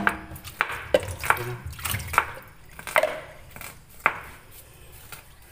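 A series of irregular light knocks and clicks, about two a second, some with a short ring after them.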